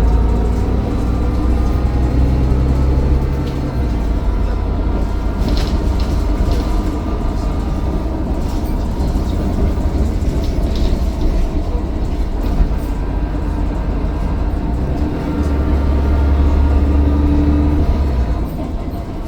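Mercedes-Benz Citaro O530 bus's diesel engine running under way, a heavy low rumble with a thin turbocharger whine that drifts up and down in pitch, and a few light rattles. The engine note eases near the end.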